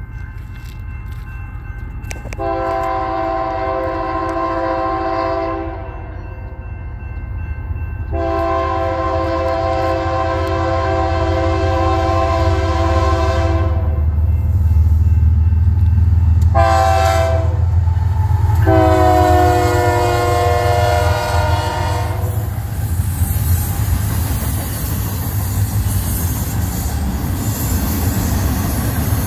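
Approaching diesel freight locomotive sounding its air horn in the grade-crossing pattern of long, long, short, long, the last blast dropping in pitch as the engine passes. A low engine rumble builds under the horn, and after it comes the steady rush of double-stack container cars rolling past.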